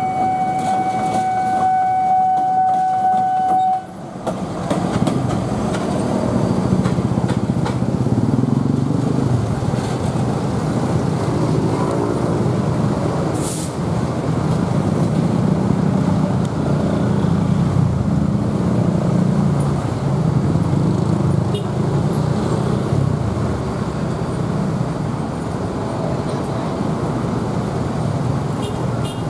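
CC 206 diesel-electric locomotive running light, its diesel engine rumbling as it passes and comes on along the track. For the first few seconds a steady high tone sounds over it and breaks off abruptly about four seconds in.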